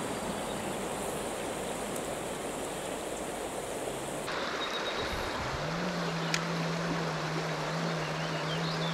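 Small creek running over rocks, a steady rush of water. About six seconds in a low steady hum joins it, with a single sharp click shortly after.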